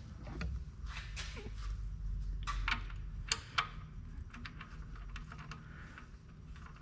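Irregular light clicks and small metallic taps of hand tools working the engine's oil drain plug, over a low steady hum.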